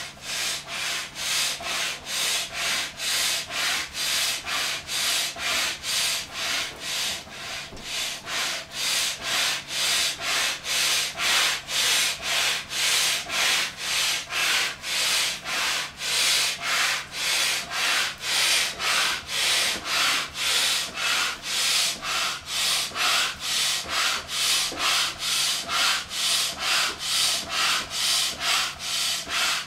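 Upright hand air pump being worked steadily, a rhythmic whoosh of air with each stroke at about two strokes a second, as it inflates a vinyl inflatable whale.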